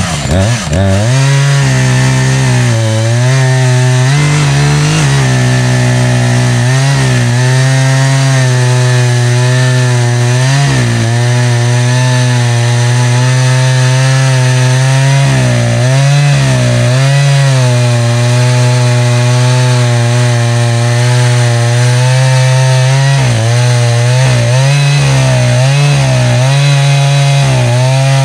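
Echo CS-590 two-stroke chainsaw revving up to full throttle within the first second, then running flat out as it rips a cedar log lengthwise in a chainsaw mill. The engine note sags and recovers now and then as the chain bites under load.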